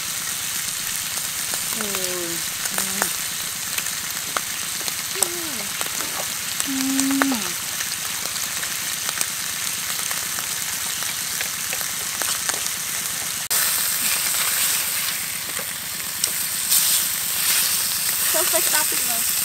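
Sliced beef frying in a large wok, a steady sizzling hiss. The sizzle jumps louder suddenly about two-thirds through.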